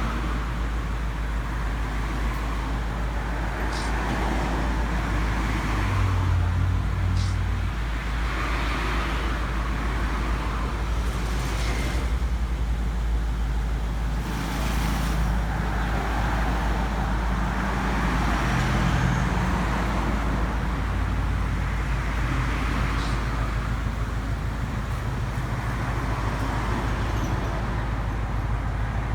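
Steady low rumble of a vehicle engine running, with road traffic noise and a few faint clicks.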